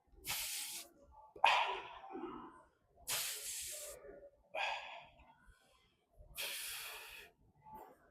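A man breathing hard close to the microphone: three cycles of a sharp hissing breath followed by a rougher, lower breath, about every three seconds.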